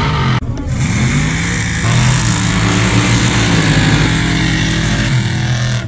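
Two lifted pickup trucks launching in a dirt drag race, their engines at full throttle. The revs climb, drop back and climb again.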